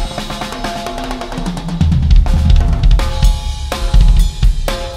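Drummer playing a full acoustic drum kit: bass drum, snare, toms and Paiste cymbals in a dense, fast pattern. The bass drum gets heavier about two seconds in.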